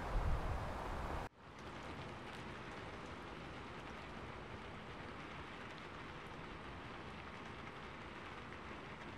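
Steady soft hiss of falling wet snow with faint light pattering. A louder low rumble, like wind on the microphone, cuts off abruptly a little over a second in.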